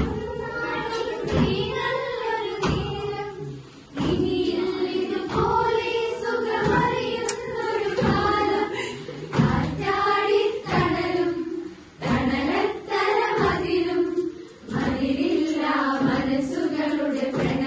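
A song sung by a group of voices in chorus, in held melodic phrases, with recurring low thuds keeping a beat.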